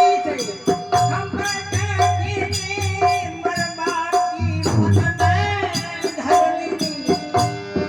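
Folk music duet: a melody line with rich overtones over an intermittent low drone, accompanied by rapid rattling percussion clicks.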